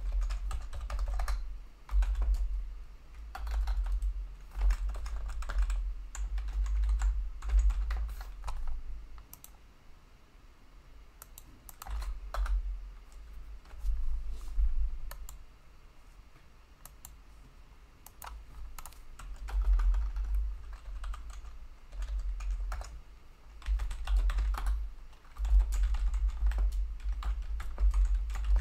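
Typing on a computer keyboard in irregular bursts of key clicks with dull thumps beneath them, easing off for a couple of seconds about a third of the way in and again for a few seconds past the middle.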